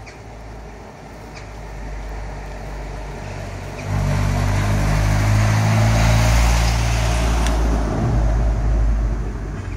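A motor vehicle passing close by. Its engine grows louder over the first few seconds, is loudest from about four seconds in, and falls away near the end.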